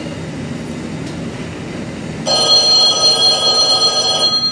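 Telephone ringing: a single ring of about two seconds that starts suddenly a little past two seconds in.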